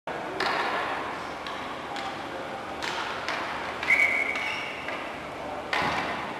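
Indoor box lacrosse play: irregular knocks and clacks of sticks and ball over a noisy echoing hall, with a short shrill high tone just before four seconds in, the loudest moment.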